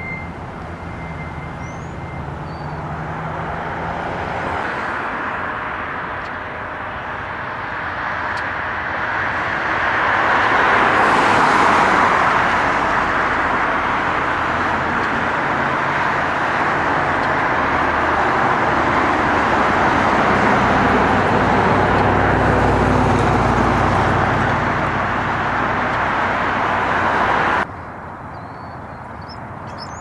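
Road traffic: a steady rush of passing vehicles that swells over several seconds, stays loud with a low rumble for a while, and cuts off abruptly near the end.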